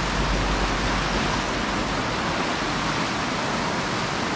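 A mountain river in flood rushing fast and full below a footbridge: a steady, even rush of water, swollen with rain and snowmelt from the mountains. A low rumble under it fades out about a second and a half in.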